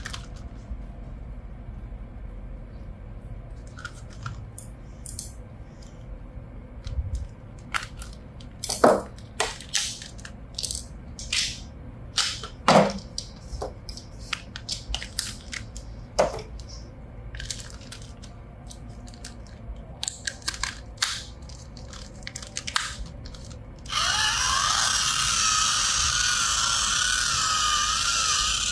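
Plastic packaging and toy parts being handled, with scattered clicks and crackles. About 24 s in, a battery-powered RC toy is switched on and gives a loud, steady whirring hiss with a wavering electronic tone.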